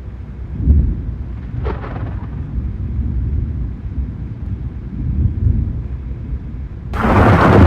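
Thunderstorm noise: a steady low rumble with a heavy thump about a second in. Near the end a sudden, much louder rush of noise sets in and keeps going.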